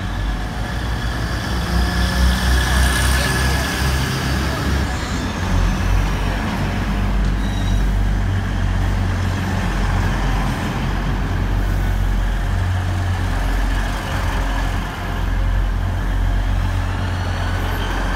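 A passenger train moving slowly out of a station with a steady low rumble.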